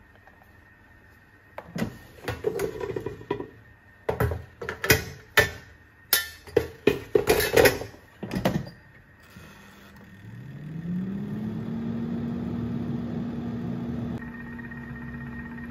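Philips air fryer basket knocking and clattering as it is handled and pushed into the fryer. Then, about ten seconds in, the air fryer's fan motor starts with a hum that rises in pitch and settles into a steady run as the fryer begins heating.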